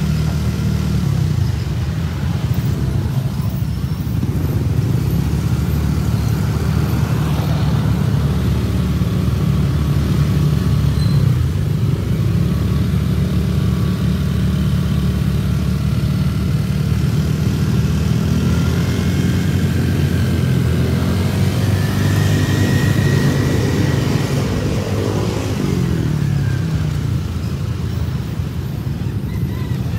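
Motorcycle engines running in a group ride, heard from a moving motorcycle: steady engine and road noise, with engine pitch rising and falling as the bikes speed up and ease off, most noticeably in the second half.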